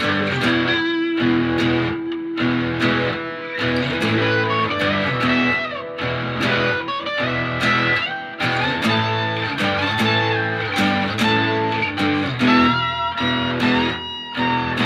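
Instrumental guitar music: plucked and strummed notes over a steady low line, with some long held notes that slide in pitch.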